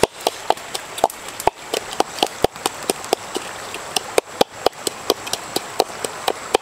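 A hand-held pestle pounding green leaves in a small bowl: a steady run of sharp knocks, about three to four a second, each with a short ring.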